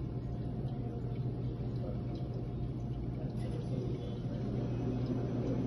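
Steady low machine hum, with steamed milk faintly pouring from a stainless steel pitcher into a cup.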